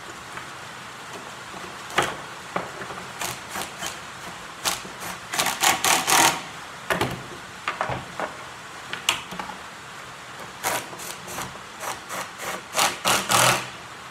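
Homemade steel clamps being handled and fitted onto a fibreglass part: irregular metal knocks and clicks, with denser bursts of scraping and clattering about six seconds in and again near the end.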